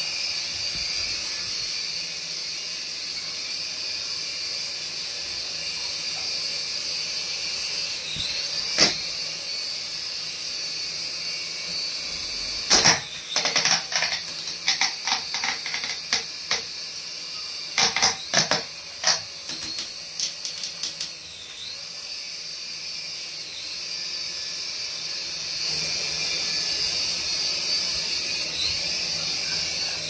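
Toy RC coaxial helicopter's small electric motors and twin rotors running in a steady high whine, the pitch dipping and rising now and then with the throttle. From about 13 to 21 seconds a quick run of sharp clicks and clatters as the helicopter knocks against the wall.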